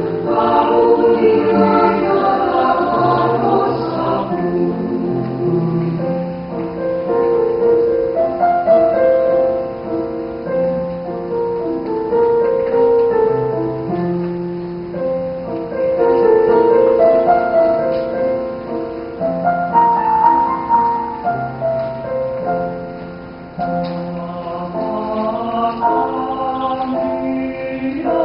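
Mixed choir of men's and women's voices singing a sacred song in several-part harmony, moving through held chords phrase by phrase.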